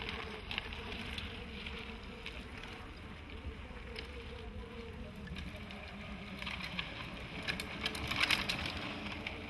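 Cross-country mountain bikes on a dirt trail: tyre noise with scattered clicks and rattles from the bikes over a steady outdoor background. It is loudest about eight seconds in, as a rider passes close.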